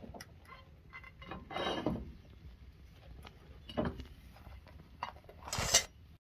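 Metal spatula scraping under a pizza on a cast-iron stove top, then the pizza set onto a ceramic plate: a few separate scrapes and knocks, the loudest near the end.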